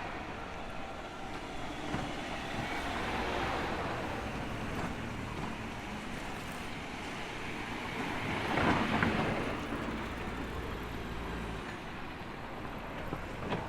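Street traffic: a vehicle's engine rumbles low and steady, with a passing vehicle swelling louder and fading about nine seconds in. The low rumble drops away near the end.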